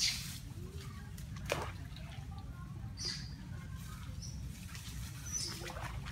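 A few short high-pitched animal chirps over a steady low rumble, with sharp clicks at the start and about a second and a half in.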